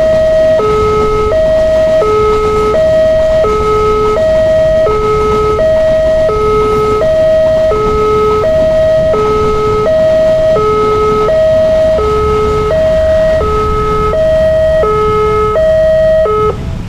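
Railway level crossing's electronic two-tone warning alarm, alternating between a lower and a higher tone, each held for under a second, over a low rumble. It cuts off suddenly near the end as the barrier lifts.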